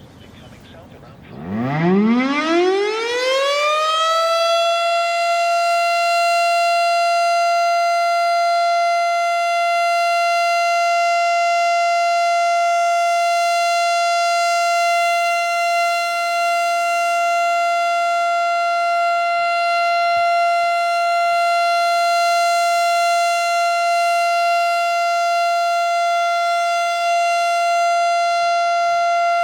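Federal Signal STH-10 outdoor warning siren winding up about a second in, its pitch rising for a few seconds to one steady tone that then holds loud and even. It is sounding as a test of the tornado warning siren during a tornado drill.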